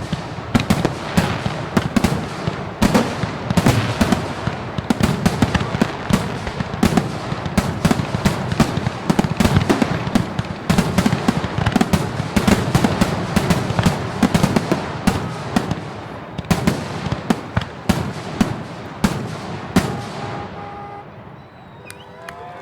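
Fireworks display going off in a dense, rapid barrage of bangs and crackles over a steady low rumble, thinning out and fading in the last couple of seconds.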